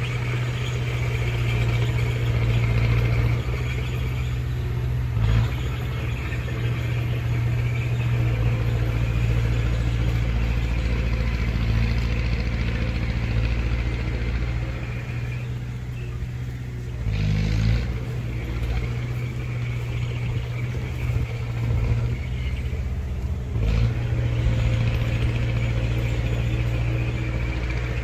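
Heavy diesel earthmoving machinery (bulldozer and dump trucks) running steadily with a deep engine hum, with three brief louder bursts spread through.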